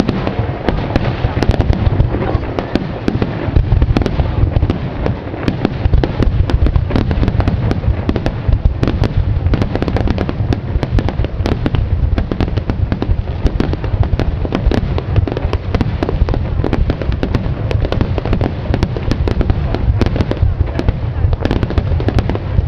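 Fireworks display in a dense, continuous barrage: many bursts and crackles every second over a steady heavy booming, with no let-up.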